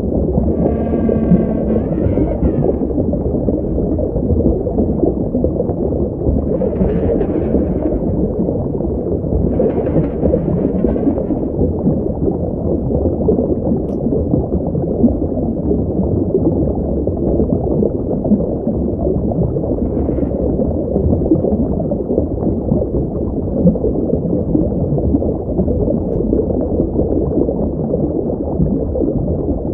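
Sound effect meant as the voice of a Liopleurodon: a steady, loud, low rumbling drone with short higher calls over it, a pitched one about a second in and briefer ones around seven, ten and twenty seconds in.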